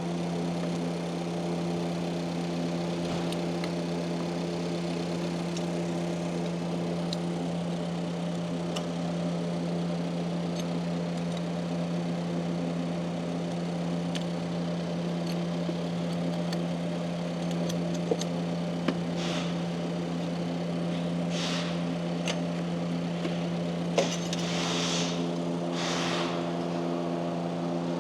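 Subaru Impreza's flat-four engine idling with the hood up, a steady even hum. In the last third come a few sharp clicks and short scraping rasps from hand tools at work on the battery bracket.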